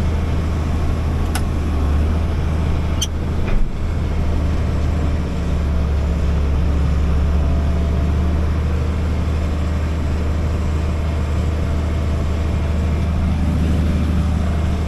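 Diesel engine of a heavy farm machine running steadily under load, a constant low drone heard from inside the cab, with two brief clicks in the first few seconds.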